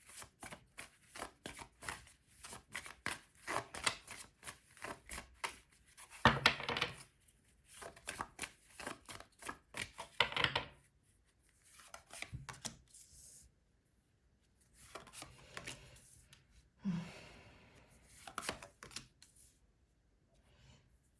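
Tarot cards being shuffled by hand: a rapid run of flicking, slapping card clicks, with two louder, longer shuffling bursts about six and ten seconds in. Later come sparser card clicks and rustles.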